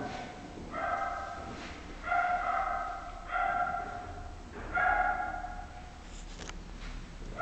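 A dog barking repeatedly: four held, steady-pitched barks a little over a second apart, then a brief click about six seconds in.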